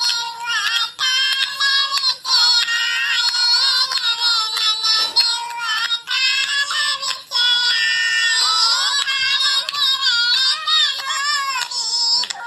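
Very high-pitched, artificial-sounding singing voice over music, its melody bending up and down.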